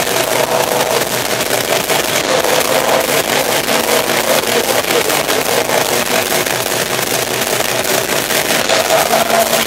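Black metal band playing live: loud, heavily distorted electric guitar over fast, unbroken drumming.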